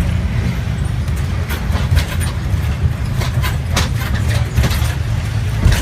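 Vehicle driving along a street: a steady low rumble, with several sharp knocks and rattles, the loudest near the end.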